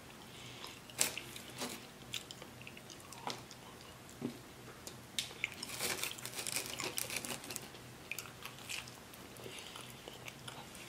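Close-miked eating sounds of pizza: chewing, smacking and crunching, with sharp crackly clicks, busiest a little past the middle.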